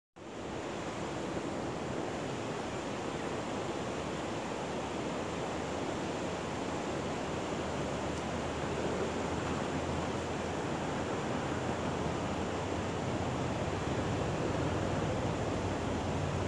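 Steady rush of water pouring over a low spillway weir, with a low rumble growing in the second half.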